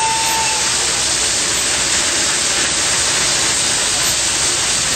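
1904 Metropolitan Extra First Class steam fire engine pumping: a steady, loud hissing rush of steam and high-pressure water spraying from its hose. A thin whistle-like tone stops about half a second in.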